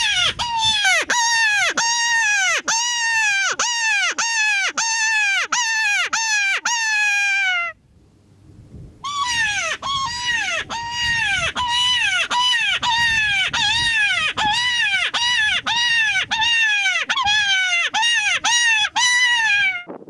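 Predator call sounding a long series of loud, falling distress cries, about one and a half a second, to lure varmints in. The cries break off near eight seconds and start again about a second later.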